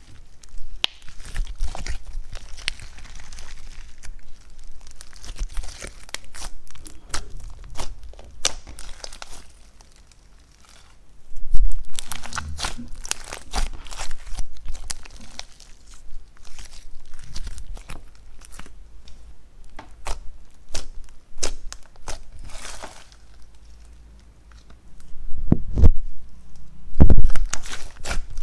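Thick slime being stretched, folded and squeezed by hand, giving irregular crackling pops and wet snaps as air pockets burst. A few heavy low thuds as the mass is pressed down, two of them near the end.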